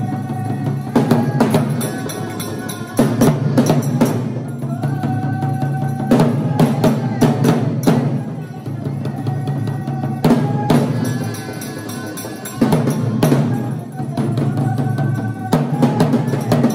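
Music led by heavy, fast drumming, with sharp drum strikes over a steady low beat and a held melody line returning in phrases every few seconds.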